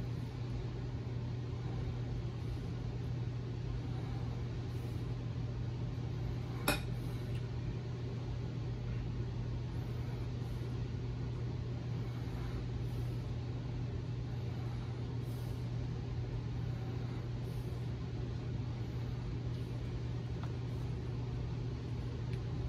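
A steady low hum with background noise throughout. A single sharp click about seven seconds in.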